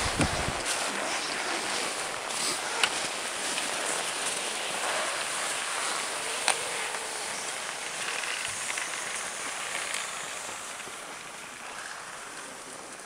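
Bicycles riding over packed snow: a steady crunching hiss of tyres on snow mixed with wind, with two sharp clicks about three and six and a half seconds in, fading gradually over the last few seconds.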